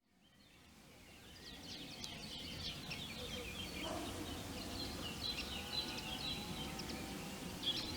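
Small songbirds chirping and twittering, many short quick calls, over a low steady rural background rumble, fading in from silence over the first two seconds.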